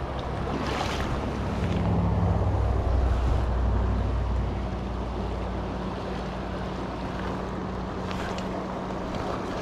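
Fast river water rushing over rocks in a riffle, with wind rumbling on the microphone that swells for a couple of seconds near the middle.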